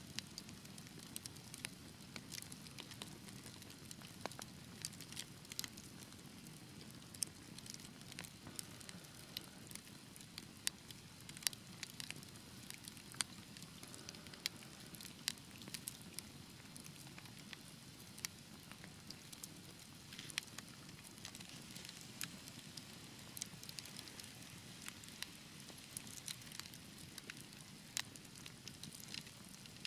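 Wood fire burning in a fireplace, with frequent irregular sharp crackles and pops over a soft, steady low rumble of the flames.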